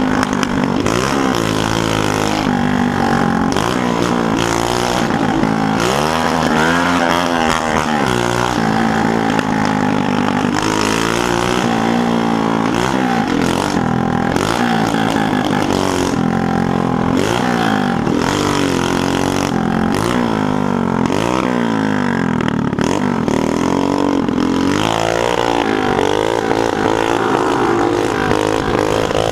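Moped engine revving up and down again and again while riding, its pitch rising and falling every second or two.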